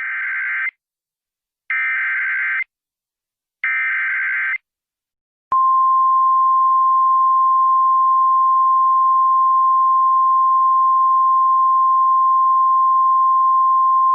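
Emergency Alert System SAME header: three bursts of raspy digital data tones, each about a second long and two seconds apart. About five and a half seconds in, a single steady, piercing attention tone starts and holds.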